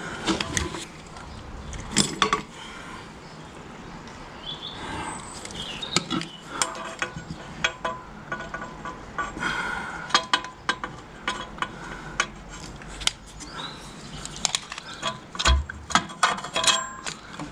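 Irregular metal clinks and knocks of hand tools and steel brake linkage parts being handled while fitting a spring and brake latch on a tractor. The clinks come thickest near the end.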